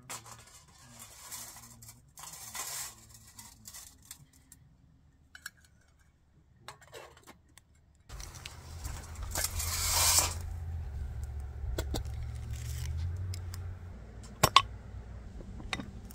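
Scattered rustling, clicks and clinks of gear being handled. About halfway through a steady low hum comes in, with a louder rustle soon after and a sharp click near the end.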